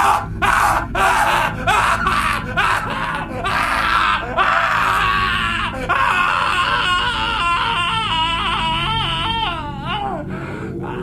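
A man's acted, wordless cries of agony: short broken whimpers and wails, then a long wavering wail that dies away about ten seconds in.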